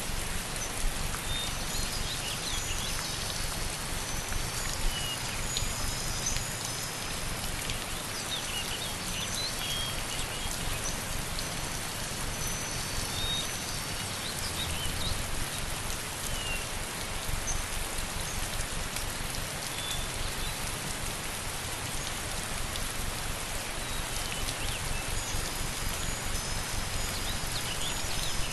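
Steady rainfall, an even hiss of rain on surfaces, with short faint high chirps now and then.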